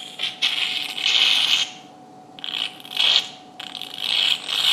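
Surgical suction tip aspirating blood from the opened nasal cavity, hissing and slurping in several bursts as the tip meets fluid and then air.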